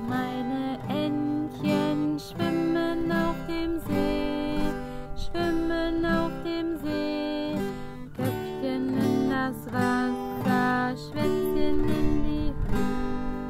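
Acoustic guitar music: a simple tune played as a run of separate notes over chords, with no singing.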